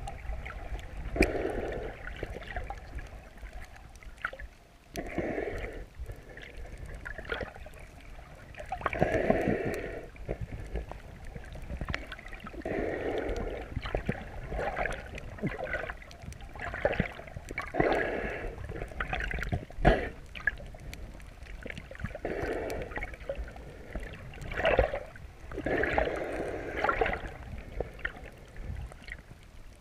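Muffled water noise picked up underwater by a GoPro in its waterproof housing: a swell of sloshing every three to four seconds over a low rumble, with scattered small clicks.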